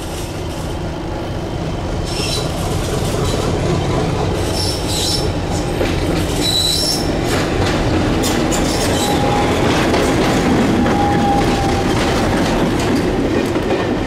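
Class 50 diesel-electric locomotive No. 50027, its English Electric 16-cylinder engine running, approaching and passing close by with its coaches, growing steadily louder. Short high wheel squeals come a few seconds in, and the coach wheels clatter over the rail joints near the end.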